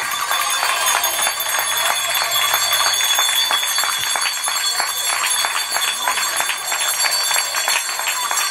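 A crowd applauding: many hands clapping at once in a dense, uneven patter, with some voices mixed in.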